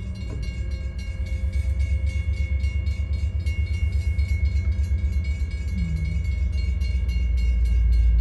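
Railroad crossing warning bell ringing in a rapid, steady rhythm at an activated grade crossing, over a low rumble that grows louder toward the end.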